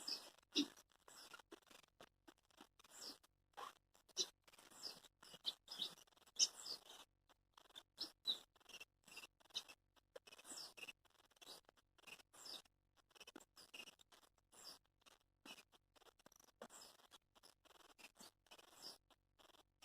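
Wild songbirds chirping faintly, many short high calls scattered irregularly throughout.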